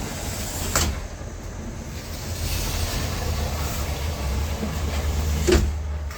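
Outside traffic noise coming onto a balcony: a steady low rumble with a rushing noise that swells in the middle. A sharp knock comes about a second in and another near the end, and after the second the higher hiss of the outside noise drops as the aluminium sliding window is shut against it.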